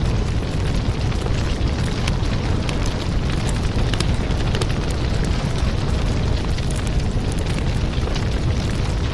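A loud, steady roaring rush full of sharp crackles, a fiery sound effect laid under an animated intro. It starts suddenly and holds unchanged.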